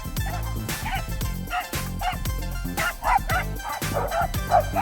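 Several dogs barking and yipping excitedly in quick, scattered short barks, over background music with steady sustained notes.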